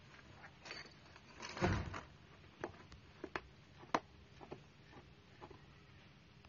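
A kitten biting and pawing at the edge of a cardboard box: a scraping rustle of cardboard about a second and a half in, then a string of sharp little clicks and crackles.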